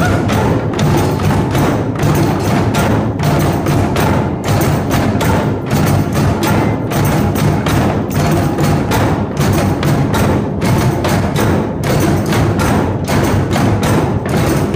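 A group drum circle: many hand drums and tambourines beaten together in a dense, steady rhythm, with no let-up.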